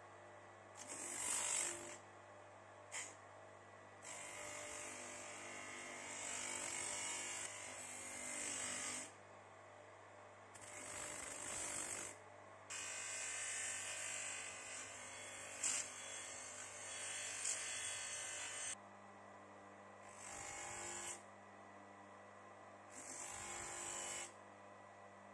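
An electric motor runs steadily with an abrasive disc on its shaft. A steel hacksaw frame, and near the end its small tensioner part, is pressed against the spinning disc in about seven grinding passes of one to six seconds each, every pass a scraping rasp over the motor's steady hum.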